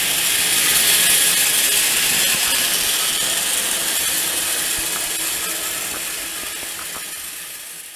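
Several battery-powered toy train engines running on plastic track, their small motors and gears whirring and clattering steadily. The sound fades out toward the end.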